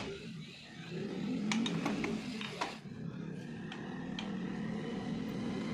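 A few light metal clicks from motorcycle gearbox parts being handled and fitted into the crankcase, over a continuous low background rumble.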